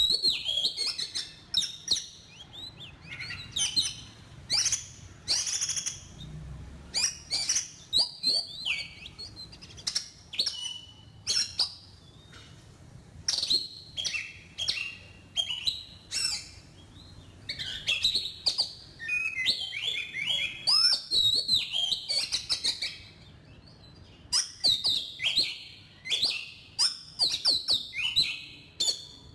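Oriental magpie-robin singing: a varied run of clear whistles and sharp chirps in short phrases with brief pauses between them. This is decoy song, played to lure the birds in for trapping.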